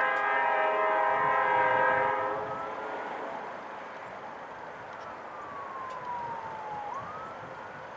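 Diesel freight locomotive's air horn blowing one long chord, cutting off about two seconds in. A siren then wails, rising, falling slowly and rising again, over the low noise of the train.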